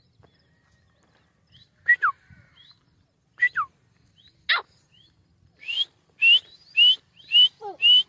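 Francolin (teetar) calling: a few separate shrill sweeping whistles, then from about halfway a loud run of repeated short, rising notes about two a second.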